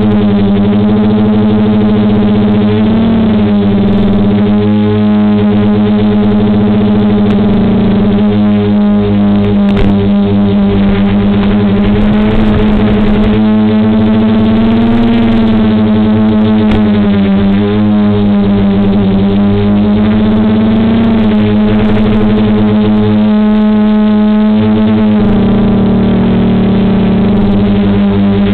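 Quadcopter motors and propellers, the DJI F450's four DJI 2212 920KV motors with 9450 props, humming steadily in hover, heard through the onboard FPV camera's microphone over the analog video link. The pitch wavers slightly up and down as the throttle shifts to hold position.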